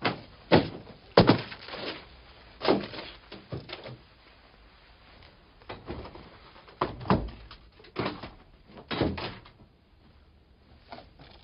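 A series of irregular knocks and thuds, with rustling between them, in a room. They come in clusters through the first nine seconds or so and then die down.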